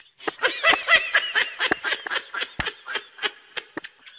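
Repeated short honking calls of fowl, with a few sharp knocks in between.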